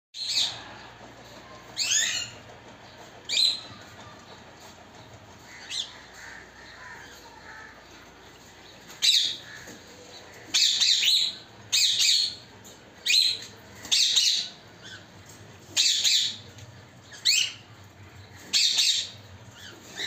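Caged parrots squawking: short, shrill calls that are few at first and come about once a second in the second half.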